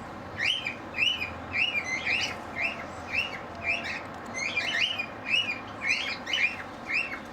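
Cockatiels chirping, a steady run of short, arched calls repeated about twice a second.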